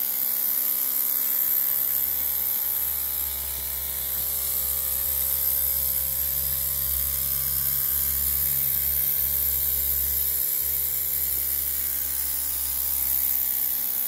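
Miniature live-steam traction engine running, its small steam engine giving a fast, even buzz with a steady hiss over it.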